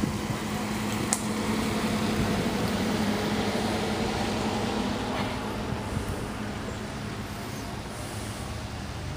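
A vehicle engine running steadily under a noisy rush of road or wind noise, with a steady low hum that drops in pitch near the end. There is a single sharp click about a second in.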